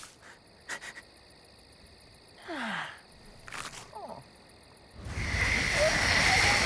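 Cartoon soundtrack: faint night-time insect chirring with two short soft effects that slide down in pitch, then, about five seconds in, a louder steady rushing noise.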